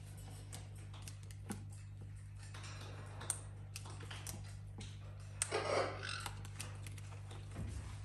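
Faint scattered clicks and taps of small parrots' beaks and feet on a plastic ball-track toy, with a short rustling burst a little past halfway, over a steady low hum.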